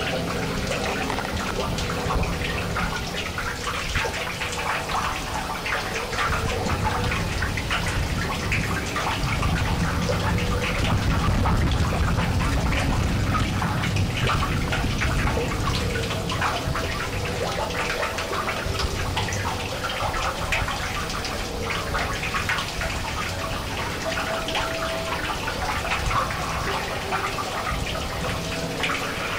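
Live harsh noise music: a continuous dense wall of crackling, hissing noise over a low rumble, with a few faint held tones in the mid range.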